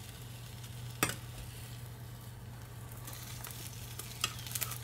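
Egg sizzling gently in an oiled rectangular tamagoyaki pan as the omelette is rolled over with a metal turner, with one sharp click of the turner against the pan about a second in and a few lighter taps near the end. A steady low hum runs underneath.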